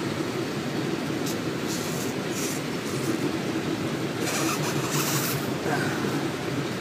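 A knife cutting through thick, layered rubber belting in several short strokes, heard over a steady low mechanical rumble. The belting is hard to cut.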